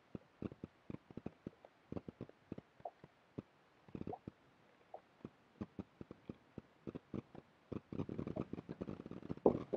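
A string of light, irregular clicks and ticks as a fish is reeled in on a spinning reel, turning to a busier clatter of taps near the end as the yellow bass is lifted into the boat.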